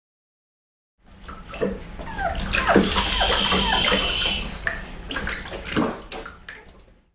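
Water running and splashing in a bath, with several short, high, falling whines from French Bulldog puppies being bathed. It starts about a second in and fades out near the end.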